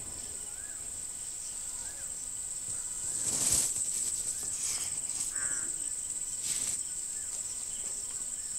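Steady high-pitched chirring of crickets, with short chirping notes every second or so. A brief noisy swell comes about three and a half seconds in as a handful of rice is eaten, and a smaller one near six and a half seconds.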